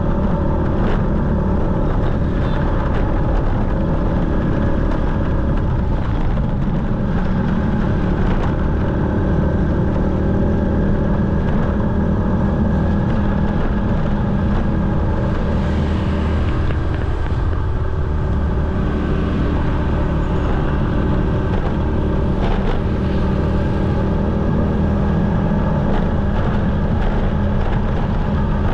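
Motorcycle engine running at a steady speed with road and wind noise, heard from the moving bike.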